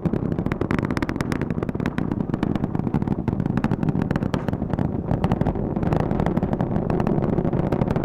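The Space Launch System rocket's four RS-25 core-stage engines and two solid rocket boosters firing in ascent, heard from the ground as a steady, crackling rumble.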